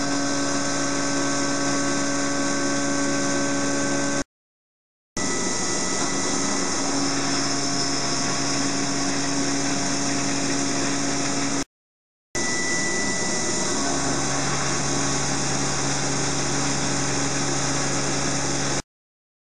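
A 16 mm four-flute solid-carbide end mill in a Weldon chuck side-milling 16MnCr5 steel on a Mikron HPM 600 HD milling machine: a steady cutting noise with a held hum, broken by brief silent gaps three times.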